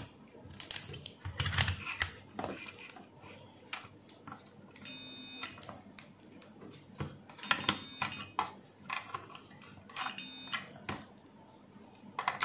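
Digital multimeter's continuity beeper sounding three times, each beep under a second, as the test lead is touched between the plug pins and the socket contacts. Light clicks of the probe and plug come in between. Each beep signals an unbroken connection through the repaired cord.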